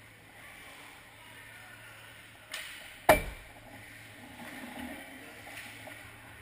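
A hockey puck striking something hard near the net with a loud, sharp crack and a short ring, about three seconds in. It comes about half a second after a lighter clack, typical of a stick hitting the puck.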